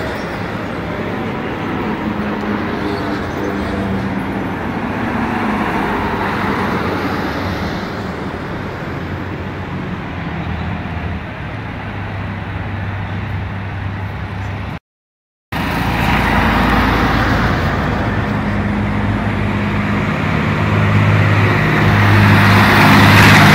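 Motor vehicle engines droning as traffic passes on a street, with a steady low hum that grows louder near the end as a vehicle approaches. The sound cuts out for about half a second midway.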